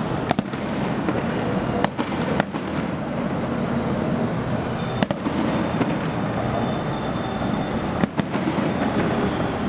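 Aerial firework shells bursting: about half a dozen sharp bangs at irregular spacing, two in quick succession near the end, over a steady rumble.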